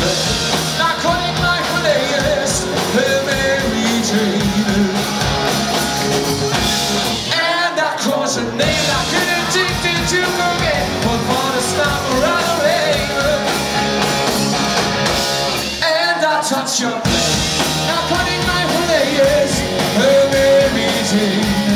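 Live band playing with a lead singer. The bass and drums drop out twice for about a second while the singing carries on.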